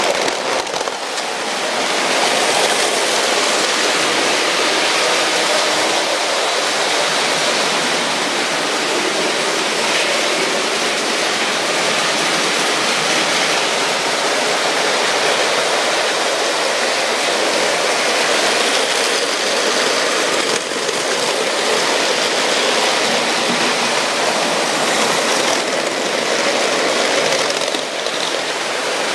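Several Lego toy trains running at once on plastic track: a steady, dense rattle and whir of small motors and wheels.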